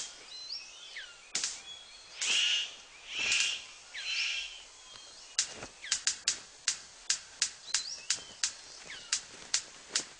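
Male superb bird of paradise courtship display: three harsh hissing bursts about a second apart, then a quick run of sharp clicks, about three a second. Short chirps of other forest birds are heard behind.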